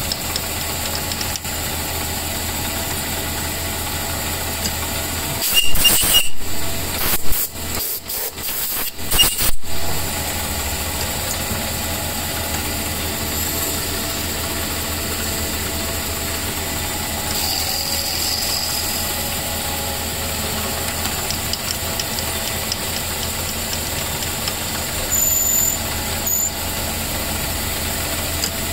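A small lathe running steadily, spinning a pool cue while a drill bit bores the hole for the joint pin. About six to ten seconds in there is a stretch of louder knocking and clattering, and two short clicks come near the end.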